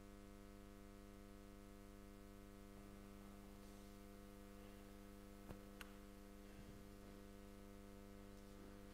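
Near silence, with a steady electrical mains hum in the recording and two faint clicks a little past halfway.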